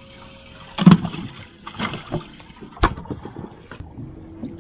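Thuds and knocks at a boat's live-well hatch as a sheepshead is put in, the loudest about a second in and a sharp knock about three seconds in.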